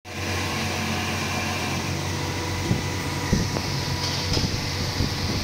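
Steady hum of a plastic injection moulding machine running, with a few light clicks as moulded plastic hinge links are handled. About four seconds in comes a short hiss of an aerosol can sprayed at the mould.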